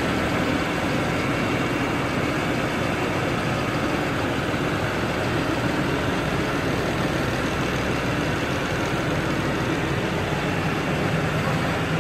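New Holland farm tractor's diesel engine running steadily at idle, with no change in revs.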